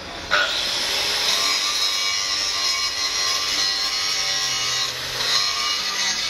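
Steady rasping, sawing-like mechanical noise that sets in a moment after the start, drops off briefly about five seconds in, then resumes.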